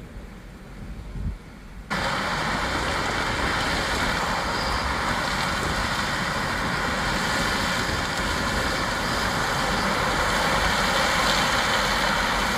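A faint low rumble, then about two seconds in the steady running noise of heavy harvest machinery cuts in abruptly and holds even.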